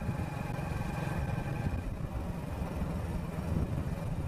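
Vehicle driving along a road: a steady, fluttering low rumble of engine and wind, with a faint high tone that fades about two seconds in.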